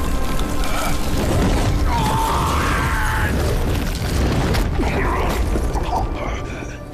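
Animated battle sound effects: a loud, dense rumbling din of magical blasts and impacts, with a wavering cry-like tone about two seconds in, easing off near the end.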